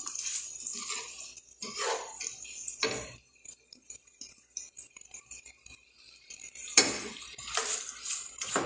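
Kitchen clatter at a gas stove: pots, pans and utensils clinking over a faint hiss, with one sharp knock late on.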